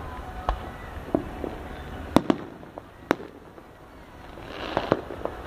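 Fireworks going off: a string of sharp separate bangs, the loudest two about two and three seconds in, and a short hiss with several quick pops near the end.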